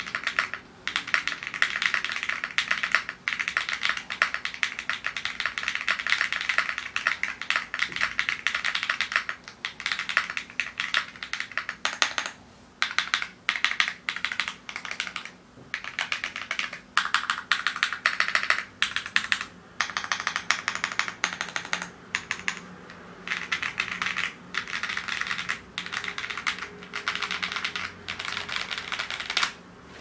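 Fast typing on a Wuque Studio Promise TKL mechanical keyboard fitted with Duhuk purple switches and PBTfans Retro Dark Lights PBT keycaps: a dense run of key clacks in bursts, with short pauses every few seconds.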